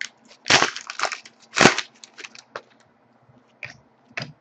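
Trading cards being handled and slid against each other: two short, louder rasping swipes about half a second and a second and a half in, then lighter clicks and ticks.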